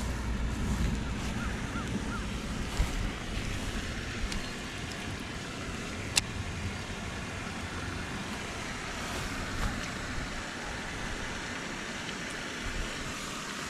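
Wind buffeting the microphone, with a low rumble that is heaviest in the first few seconds, and a couple of sharp clicks, the clearest about six seconds in.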